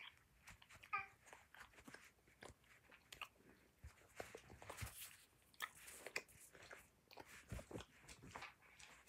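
Close, faint chewing of sour candy, with soft wet mouth clicks and small crunches. A short high squeak about a second in.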